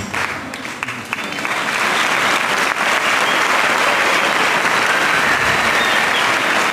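Audience applause: scattered claps grow about a second and a half in into steady, dense clapping.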